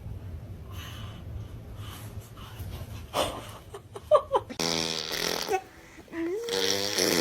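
Laughter in two bouts in the second half, over a steady low hum at the start.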